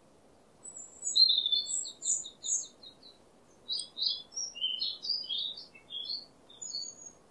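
A songbird singing in two phrases: a quick run of short high chirps, then after a brief pause a varied string of high notes, over a faint steady hiss.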